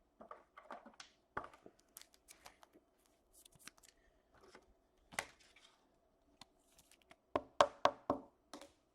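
Hockey trading cards being handled on a tabletop and slid into plastic top loaders: scattered light clicks and rustles, then a quick run of about five sharp taps near the end.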